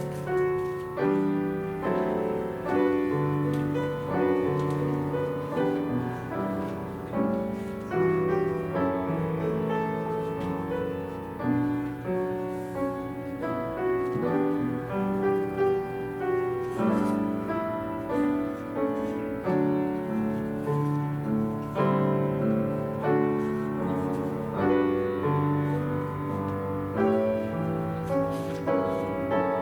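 Piano playing a slow piece, each note or chord struck and left to ring out.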